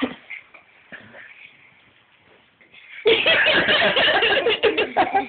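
A brief thump at the very start, then, about three seconds in, people break into loud laughter and excited voices that run on.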